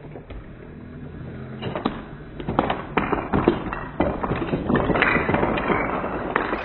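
Wooden Jenga blocks knocked down by Nerf darts, clattering and tumbling onto a wooden floor, slowed down. A low hum comes first, then a dense run of knocks and clatters from a couple of seconds in.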